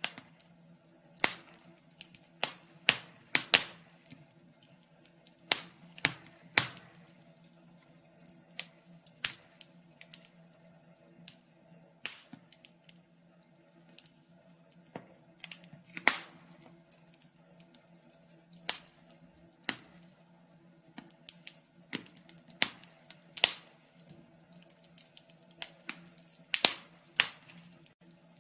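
Wood fire crackling: sharp, irregular pops and snaps, some single and some in quick clusters, over a faint steady low hum.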